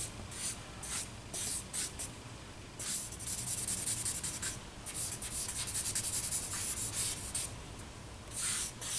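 Charcoal scratching across drawing paper: a few quick short strokes, then longer stretches of steady scratching, a second or two each.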